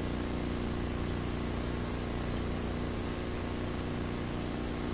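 Steady low hum with a faint hiss under it and no distinct events: the background noise of an old video recording.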